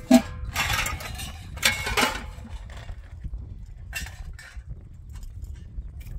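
A dog eating from a plate on the ground: short clinks and scrapes of the dish, several in the first two seconds and two more about four seconds in, over a low rumble of wind on the microphone.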